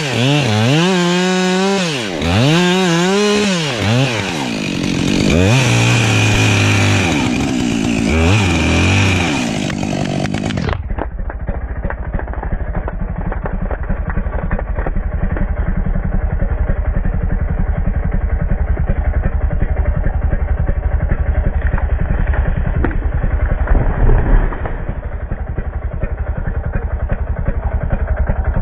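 Husqvarna chainsaw revving up and down several times as it cuts through the pine trunk for about the first ten seconds. Then the sound changes suddenly to a duller, steady rumble with fine rapid ticking, with one louder moment near the end.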